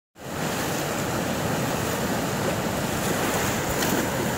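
Fast, muddy river rushing through rapids over rocks: a steady, unbroken wash of water noise.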